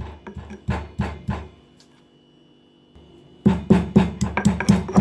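Spices pounded with a pestle in a stone mortar: ginger, cardamom, pepper and cloves being crushed to a paste. The strikes come in an even rhythm, pause briefly about a second and a half in, then resume louder and faster, about four strokes a second.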